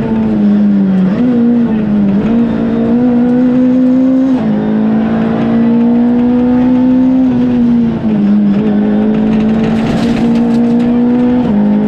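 Ford Fiesta R2 rally car's 1.6-litre four-cylinder engine heard from inside the cabin, running hard at high revs. Its pitch climbs and then drops sharply at several gear changes, down into second and back up into third through the bends.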